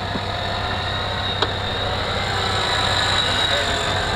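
Toyota FJ Cruiser's V6 engine running with a steady high whine while the truck, tilted in a ditch, is winched out; engine oil has run to the low side and is burning off, which the crew puts down to the engine sitting tilted too long. One sharp click about a second and a half in.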